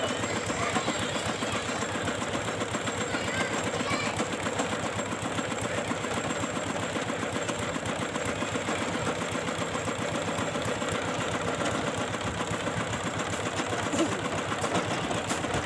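Engine of a tube-well boring machine running steadily with a fast, even chugging.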